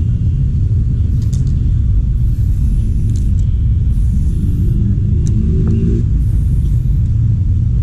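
Spray-paint can hissing in four short bursts of about a second each, over a steady low rumble.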